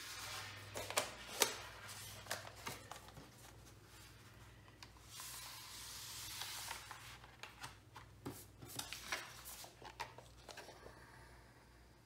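Plastic inner sleeve and paper insert of a vinyl record being handled and slid, with soft rustling in two stretches and scattered sharp clicks and taps. The two loudest clicks come about a second in.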